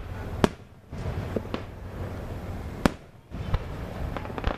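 Aerial fireworks shells bursting with sharp bangs, the two loudest about half a second in and just before three seconds in, with smaller pops and crackles between.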